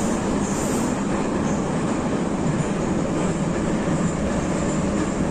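Metro train running, heard from inside the carriage: a steady, loud, unbroken rumble of wheels on rail and traction motors.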